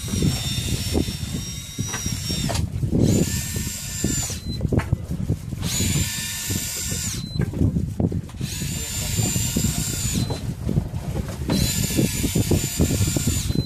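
Electric fishing reel motor winding in line against a hooked fish, whining in repeated bursts of one to two seconds with short pauses between them, over a steady low rumble.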